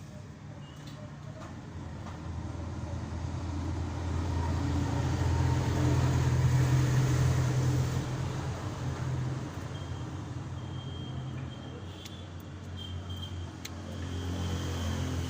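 Isuzu 4HF1 four-cylinder diesel engine running with a steady hum, growing louder toward the middle and then easing back. This is the engine with the bad sound being checked.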